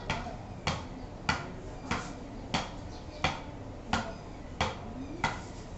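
A ball bounced again and again on the flat face of a wooden cricket bat: nine sharp taps in an even rhythm, about one every two-thirds of a second.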